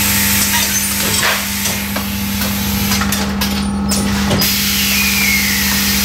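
Coffee bagging machinery running: a steady motor hum under a loud hiss of air, with a few clicks and knocks as bags are handled and machine parts move. The hiss drops out briefly past the middle, then comes back.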